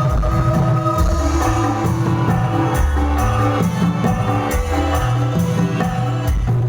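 Music with kendang hand drums keeping a steady, even beat over a moving bass line.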